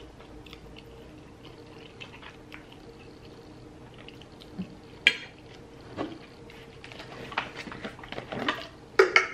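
Close-miked eating sounds: soft wet chewing and mouth smacks on a forkful of coleslaw, with small clicks and a sharp click about five seconds in. In the last couple of seconds the sounds grow louder and busier as a large plastic water jug is lifted and drunk from.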